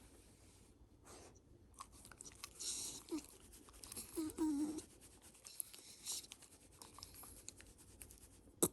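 Shiba Inu moving about indoors: scratchy rustles and small clicks, with a short wavering nasal or vocal sound about four seconds in and a sharp click near the end.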